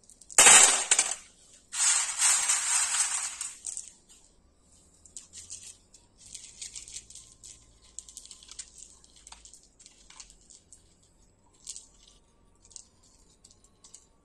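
Wet stone chips (coarse aggregate) rubbed and tumbled inside a cloth to blot off their surface water: two loud rustling shakes in the first four seconds, then softer scattered clicks of stone against stone. This is the surface-drying step that brings the aggregate to its saturated surface-dry state.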